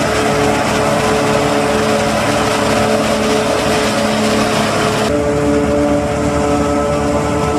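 John Deere 5400 self-propelled forage harvester chopping standing corn, running steadily under load with a steady drone and a steady pitched whine, together with the tractor pulling the trailer alongside. The sound turns duller about five seconds in.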